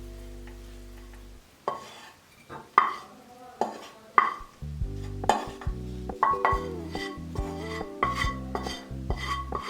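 Sharp clinks and knocks of kitchenware, about one every half second to second, heard clearly in a gap in the background music and then continuing under pop music that comes back in about halfway through.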